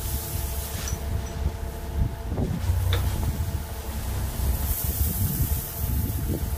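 Mini excavator engine running steadily while gravel pours out of a bulk bag hung from its arm.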